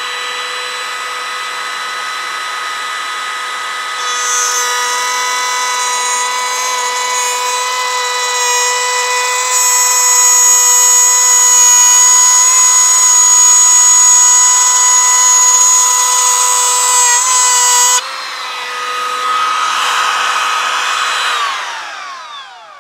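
Greenworks G24RO cordless brushless trim router spinning at its top speed with a steady high whine. From about four seconds in the bit cuts a groove in a wooden board and the sound grows louder and noisier. The cut ends suddenly about eighteen seconds in, and near the end the motor is switched off and winds down in falling pitch.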